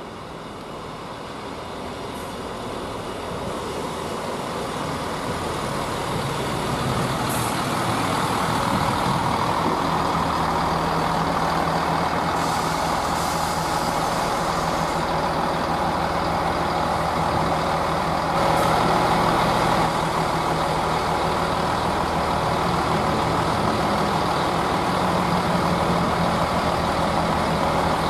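Class 158 diesel multiple unit coming into the station, its underfloor diesel engines growing louder over the first several seconds and then running as a steady low drone. There is a brief louder patch about two-thirds of the way through.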